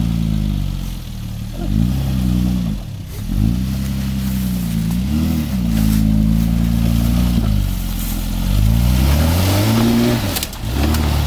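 Nissan Patrol 4WD's engine under load as it crawls through a deep washout, the revs rising and falling several times and held steady for a stretch in the middle.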